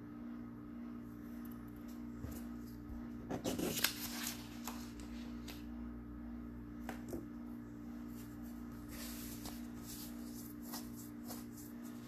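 Rustling and a few light clicks and knocks from objects being handled on a table, loudest about three and a half seconds in, over a steady low electrical hum.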